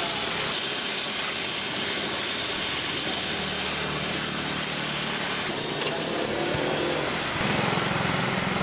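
An engine running steadily over a constant hiss; near the end its low throb gets louder and more pulsing.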